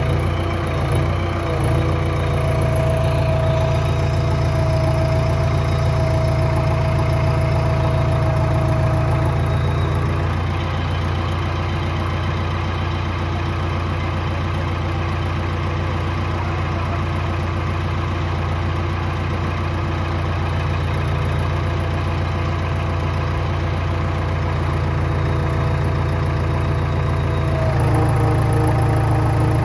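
JCB backhoe loader's diesel engine idling steadily, picking up slightly near the end.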